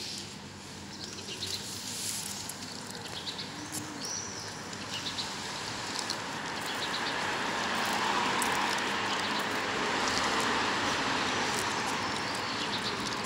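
Urban street ambience: a steady rush of traffic that swells to its loudest over the middle and eases off a little, with a few short bird chirps.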